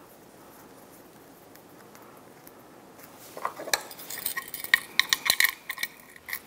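Quiet for about three seconds, then a quick run of sharp metallic clicks and clinks as a compression tester's gauge and hose fittings are handled and coupled together.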